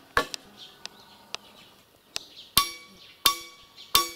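Hammer strikes driving a wooden swing crossbeam back into place along its post: a few lighter knocks, then from about halfway three hard blows roughly two-thirds of a second apart, each with a clear metallic ring.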